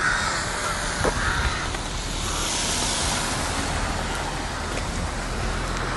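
Steady outdoor background noise, an even hiss over a low rumble, with a light knock about a second in.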